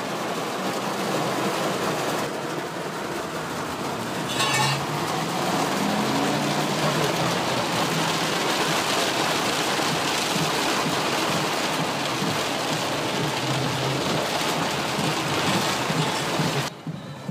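Heavy rain pelting a car's roof and windshield, heard from inside the car as a steady dense hiss. It drops off sharply near the end.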